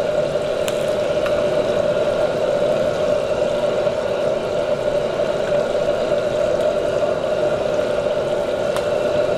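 Battered shrimp deep-frying in a wok of hot oil: a steady bubbling sizzle over a steady background roar. There are a few light ticks of the metal ladle against the wok, near the start and near the end.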